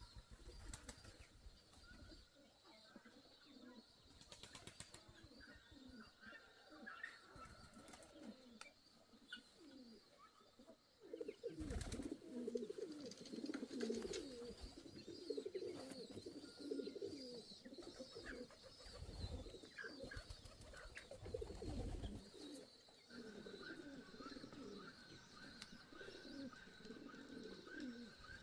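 Pigeons cooing, many short falling calls repeated over and over, much busier and louder from about eleven seconds in, with faint higher chirps from small birds.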